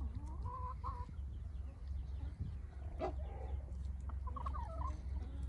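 Polish chickens clucking softly in short bursts, once about half a second in and again near the end. A sharp click comes about three seconds in, over a steady low rumble.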